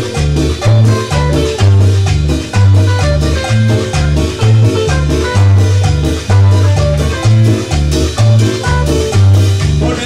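Live Latin tropical dance band playing: a bass line pulsing about twice a second under timbales and other percussion.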